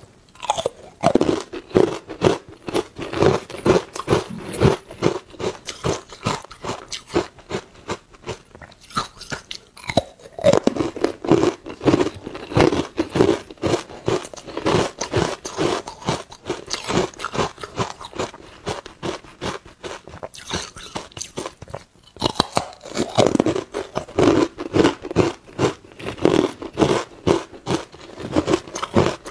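Carbonated ice cubes being bitten and crunched in rapid chews, with two short lulls between mouthfuls, about a third and three quarters of the way through.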